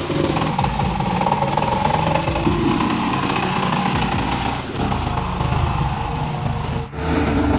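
Heavy earthmoving machine's engine running steadily under load, with pitched engine tones over a rumbling noise. About seven seconds in, the sound drops out briefly and a different engine recording takes over.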